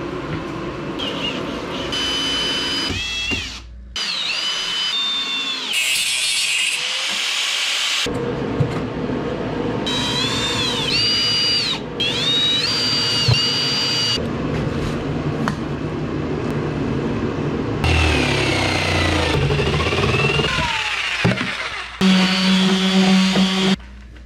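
Cordless drill driving screws into plywood in several short runs, its high motor whine dipping in pitch as each screw bites and then recovering, with bench handling noise between. Near the end a steady low hum sounds for about two seconds.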